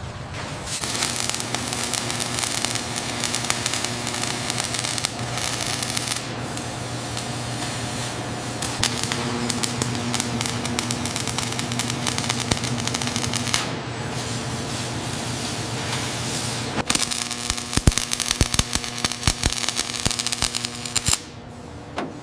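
Factory machinery noise: a steady hissing over a low hum that changes in character several times, with a run of sharp crackling clicks near the end.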